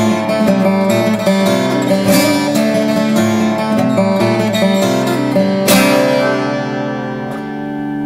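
Fingerstyle playing on a Blackbird Lucky 13 carbon-fibre parlour acoustic guitar in DADGAD tuning: a quick run of plucked notes, then a chord struck a little past halfway and left to ring and fade.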